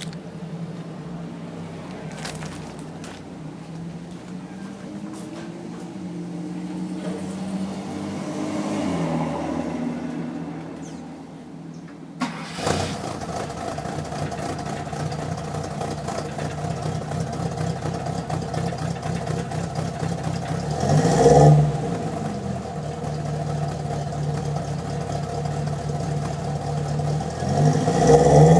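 A 1982 Chevrolet Chevette's four-cylinder engine running, its pitch rising and falling. About twelve seconds in the sound changes suddenly to a louder, steady running, and the engine is revved briefly twice, once about twenty-one seconds in and again near the end.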